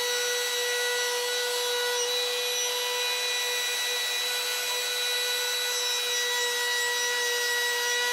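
Bosch palm router running at a steady high whine, its bit cutting an internal thread into a slowly turning wooden nut blank on a metal lathe.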